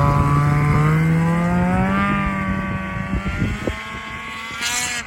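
Ski-Doo Renegade 850 two-stroke twin snowmobile running through an MBRP Race exhaust, pulling away with its engine note rising slowly and then fading as it moves off; the sound cuts off suddenly near the end.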